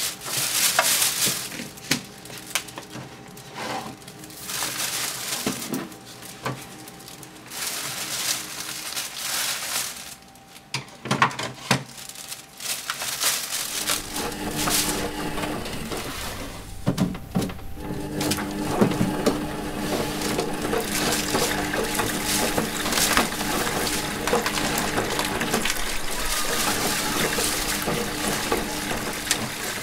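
A thin plastic shopping bag rustling and crinkling as hands rummage through it. About 14 seconds in, a front-loading washing machine joins in with a steady hum and low rumble from its turning drum, and the bag rustling goes on over it.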